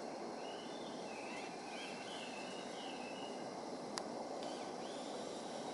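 A bird chirping in short warbling phrases over a steady outdoor hiss, with a single sharp click about four seconds in.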